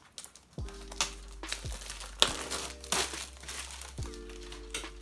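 Clear plastic packaging being pulled open and handled, crinkling and tearing in several sharp crackles, the loudest a little past the middle. A steady low backing beat runs underneath from about half a second in.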